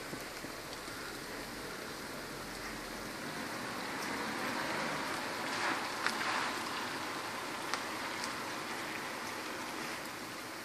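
Steady rain falling on a wet street, swelling a little in the middle, with a few sharp taps of single drops.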